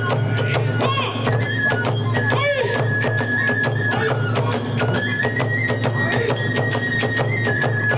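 Kagura hayashi accompaniment: a bamboo flute plays a high, stepping melody over fast, steady beats of drums and small hand cymbals.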